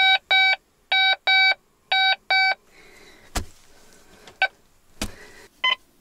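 A metal detector beeps in three double beeps about a second apart, each a short, steady, high tone. The tone marks a non-ferrous metal target in the ground. After the beeps stop, a few faint knocks follow.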